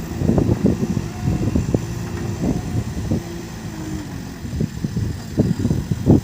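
JCB 3CX backhoe loader's diesel engine running, with uneven low knocks and a faint whine that steps down in pitch through the middle.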